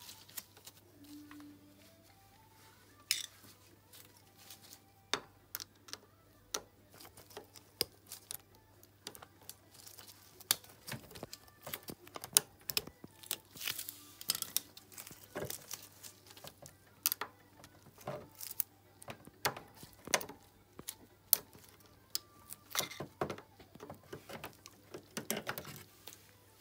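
Irregular small metal clicks, taps and scrapes of a hand tool prying at the circlip on a moped engine's starter-motor pinion, growing busier about halfway through.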